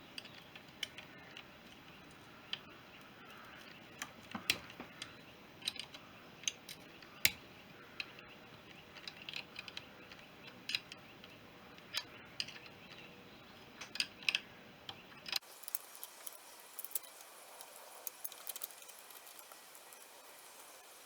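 Spanner and small steel parts clicking and clinking as the retaining nuts and washers of a BSA B31's oil pump are undone and the pump is worked off the crankcase. The sharp metallic clicks are scattered and irregular.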